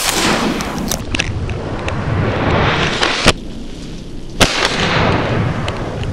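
Three shotgun shots fired at ducks, the last two about a second apart, each trailing off in a noisy smear of echo.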